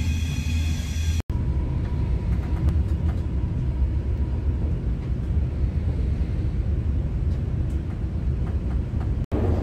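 Passenger train running, a steady low rumble heard from inside the carriage.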